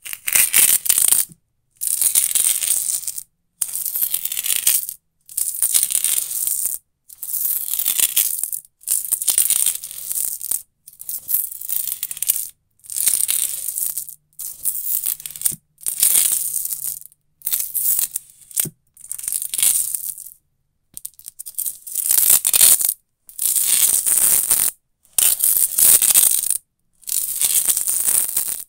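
Adhesive tape rubbed along a wooden floor in repeated strokes, about sixteen harsh, rasping scrapes of a second or so each, with silence between them and a longer pause about two-thirds of the way through.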